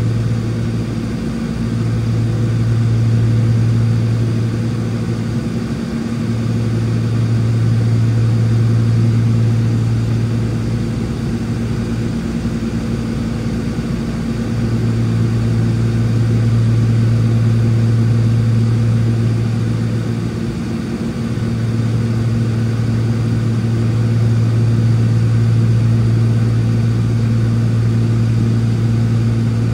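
Cessna 402C's twin turbocharged Continental six-cylinder piston engines and propellers droning steadily, heard inside the cabin. The loudness slowly swells and fades every several seconds: the beat of the two engines turning at slightly different speeds.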